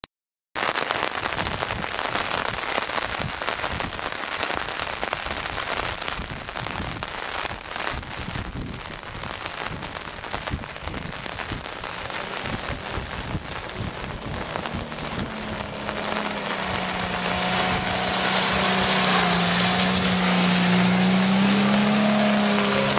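A steady crackling hiss throughout; about two-thirds of the way in, a Subaru Impreza's flat-four boxer engine comes in and grows louder as the car drives up a waterlogged, muddy dirt track and passes close by.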